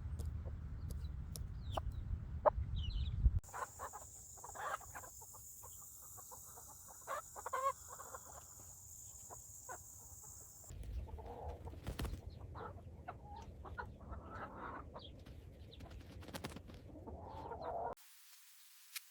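Chickens clucking in short, scattered calls, with some wind or handling noise on the microphone; the background changes abruptly a few times and goes nearly silent near the end.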